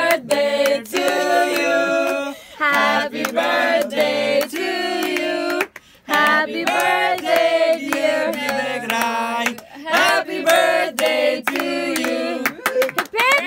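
Voices singing a song with hands clapping along, a birthday song sung to a cake with lit candles.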